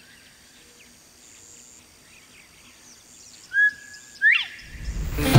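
Northern bobwhite calling its two-part "bob-white" whistle: a short level note, then a sharply rising slurred note. It is set against faint chirps of other birds, and music fades in near the end.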